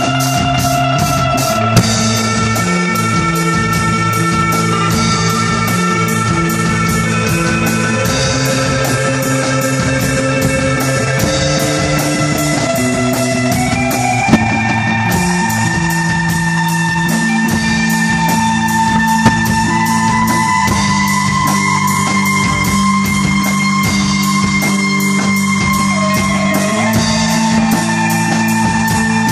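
Live rock band playing: an electric guitar holds long melody notes over an electric bass line, with a drum kit keeping a steady beat.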